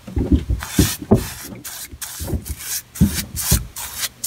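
Paintbrush bristles rubbing oil-based primer onto a rough cast iron drain pipe in quick, uneven back-and-forth strokes, about two to three a second.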